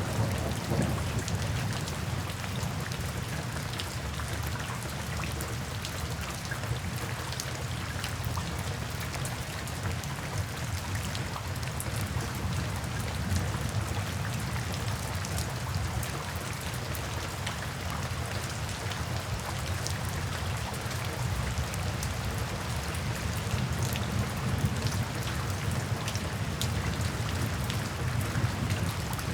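Steady rain falling, with individual drops ticking through it and a low, steady rumble underneath.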